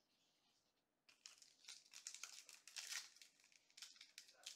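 Foil wrapper of a Panini NBA Hoops Premium Stock card pack crinkling as it is handled and torn open. The crinkling starts about a second in and goes on in irregular crackles.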